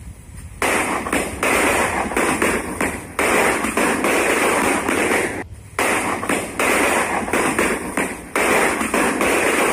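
Firecrackers going off in long, rapid crackling runs, loud and continuous, breaking off briefly three times.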